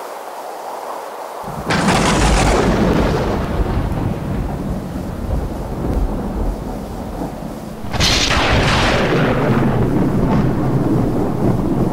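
Two thunderclaps, each a sudden crack that rolls off into a long rumble: the first about a second and a half in, the second near eight seconds. The rumble carries on between them. Before the first clap there is a softer steady rushing noise.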